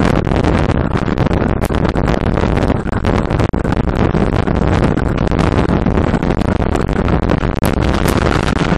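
Wind buffeting the microphone of a cheap bike-mounted bullet camera while riding at road speed: a loud, unbroken rumble with constant crackling.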